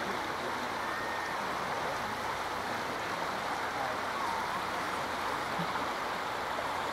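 Fast-flowing river current rushing steadily, an even wash of water noise.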